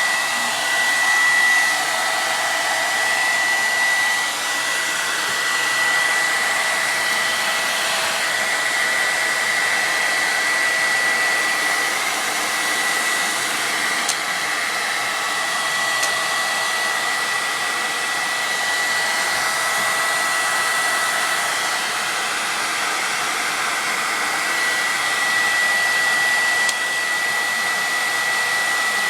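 Hair dryer running steadily: a rushing hiss of air with a high, steady whine.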